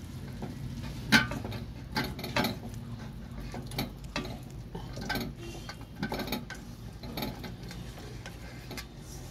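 Metal wok clinking and knocking against the gas stove and hand as the chicken, potatoes and onions in it are mixed with masala: scattered sharp knocks, about one a second, over a steady low hum.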